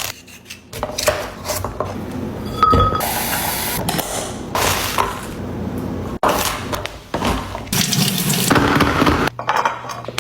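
Liquid being poured into containers while stocking a fridge, with sharp clinks and knocks of glass and plastic containers being set down and handled.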